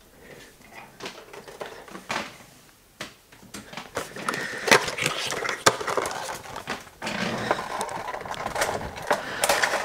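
Cardboard Funko Pop box being opened by hand: quiet at first, then scattered clicks and taps from about three seconds in, and a longer scraping rustle near the end as the clear plastic insert slides out of the box.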